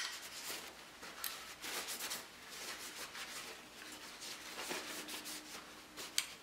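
Dry shop towel rubbing and rustling over the outside of a Sig Sauer Mosquito .22 pistol, soft and uneven, with a few faint clicks from the pistol being handled.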